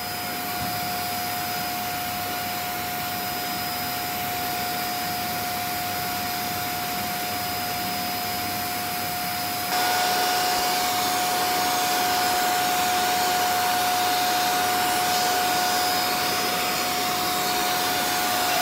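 Pet grooming blow dryer running steadily, a rush of air through its hose with a constant whine on top, drying a wet cat. It jumps louder about ten seconds in.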